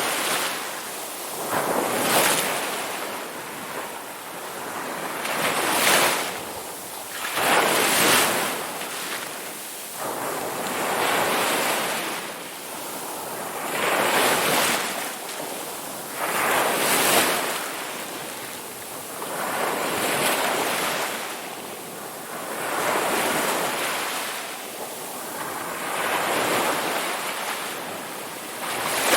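Ocean waves breaking on the shore, each crash swelling into a hiss and then falling back, roughly one every two to three seconds.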